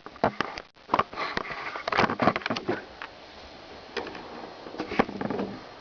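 A cat sniffing close to the microphone: several bouts of quick, short sniffs with brief pauses between them.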